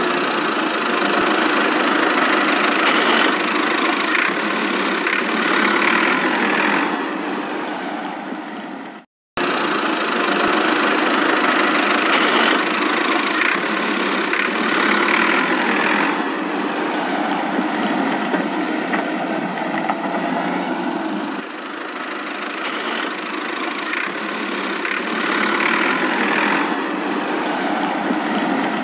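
Steady engine-like running sound of a homemade model tractor. It cuts out for a moment about nine seconds in, then runs on.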